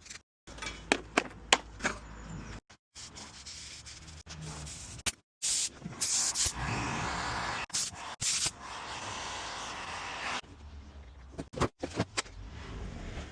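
Rubbing and sanding on a car body panel, with a few short hissing bursts in the middle. The sound breaks off abruptly several times.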